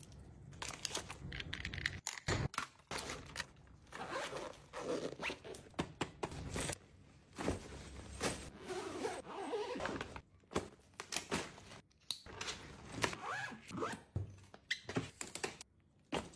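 Zippers pulled on a fabric makeup bag and a suitcase, among rustling plastic and fabric and light clicks and knocks of items being packed. The sound comes as a string of short scratchy zips and rustles with brief pauses between them.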